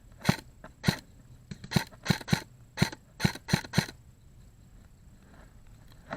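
Airsoft guns firing single shots: about nine sharp pops in under four seconds, at an uneven pace.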